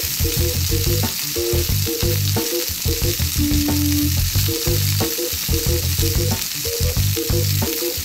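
A frying sizzle sound effect, a steady hiss as of eggs frying in a pan, over background music with a short, bouncy repeating melody and bass.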